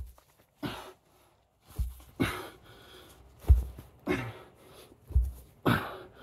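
A man breathing hard through a bodyweight ab exercise: short, forceful huffs and exhales about once a second, three of them with a dull low thump.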